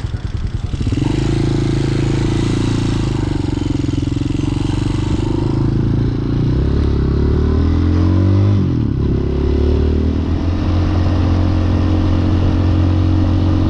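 Hawk 250cc motorcycle engine, fitted with a new carburetor, running while riding. It holds a steady note, drops in pitch about six seconds in, and sweeps up and back down around eight to nine seconds before settling again.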